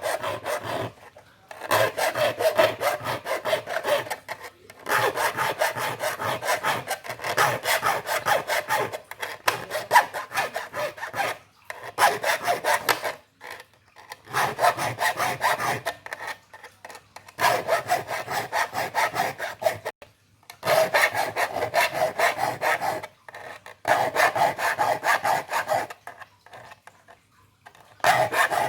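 Hand file rasping across the teeth of a wood handsaw in quick repeated strokes, in runs of a few seconds broken by short pauses: sharpening a dull saw.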